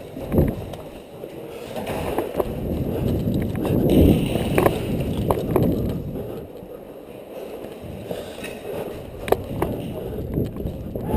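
Irregular sharp clicks and knocks over a low rumble of movement and handling noise, typical of an airsoft player moving through an indoor arena with gear rattling.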